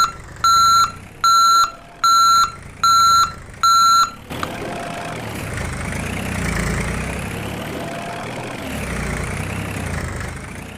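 Toy JCB excavator's electronic sound effects: a steady series of reversing beeps, a little over one a second, that stops about four seconds in. A recorded engine sound then follows, rising and falling slowly in pitch.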